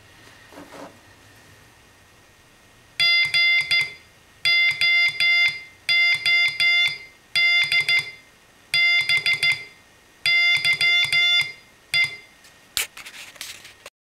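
Homemade Altoids-tin Morse code oscillator beeping a steady-pitched tone as a Czech army straight key is tapped, sending about six short groups of dots and dashes. A brief rustle of handling near the end.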